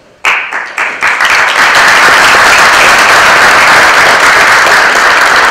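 Audience applauding. A few separate claps start it, building within about a second into steady, loud clapping from many people.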